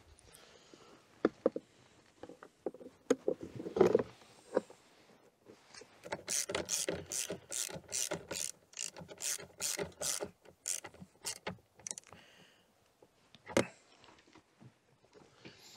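Ratchet wrench tightening the hold-down clamp of a car battery: scattered knocks of tools on metal, then a steady run of ratchet clicks, about three a second, for several seconds, and one last knock near the end.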